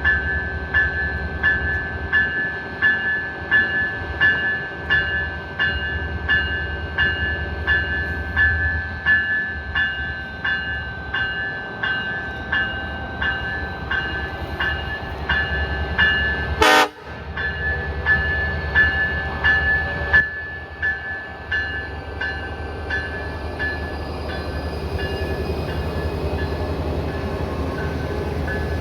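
A train passing, with a low rumble under a high ringing that repeats about twice a second. There is a sharp knock partway through, and the low rumble drops away near the end while the ringing goes on.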